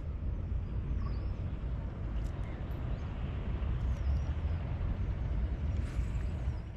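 Wind buffeting the microphone: a steady low rumbling rush with hiss, with a few faint high chirps over it.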